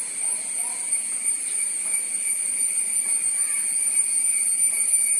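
Steady, high-pitched drone of insects, such as cicadas, in the surrounding vegetation.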